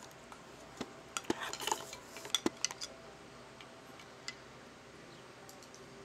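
Small metallic clicks and clinks of steel binder clips and their wire handles being handled as thread is passed through them, with a brief rustle of the thread. Most of the clicks come in the first half, then only a faint tick.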